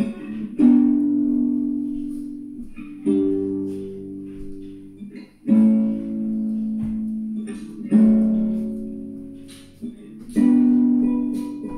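Guitar playing an instrumental break with no singing: five strummed chords, one about every two and a half seconds, each left to ring and fade.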